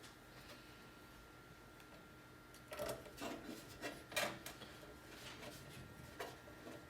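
Quiet handling of a motherboard and its mounting screws inside a PC case: after a near-still start, a scattered run of short clicks, taps and scrapes from about three seconds in.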